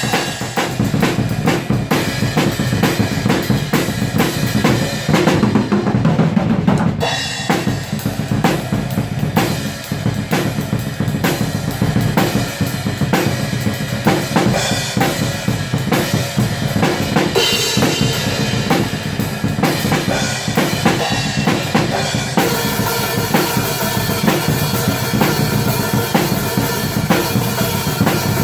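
Atmospheric black metal music with fast, dense drum-kit playing, bass drum and snare, under a full wash of sound.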